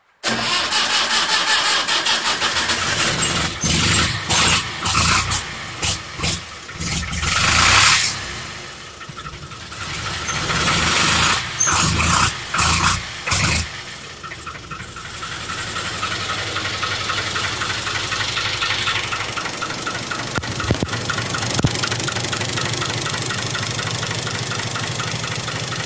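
Cold start of a Fiat 480 tractor's three-cylinder 2.7-litre diesel at −7°C: it cranks and fires at once, runs unevenly in a string of loud surges for the first dozen seconds or so, then settles into a steady idle from about fifteen seconds in.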